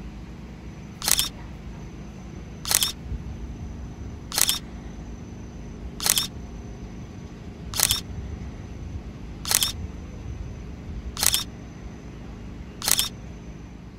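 Camera shutter sound effect clicking eight times at an even pace, about once every 1.7 seconds, over a steady low hum.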